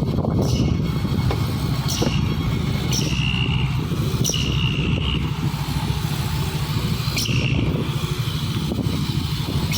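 Dump truck's diesel engine running steadily with a deep rumble. A few short high tones and light clicks sound over it.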